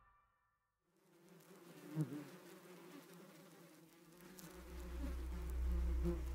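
Flies buzzing faintly, wavering in pitch, starting about a second in after a moment of silence. A low rumbling drone swells in underneath about halfway through.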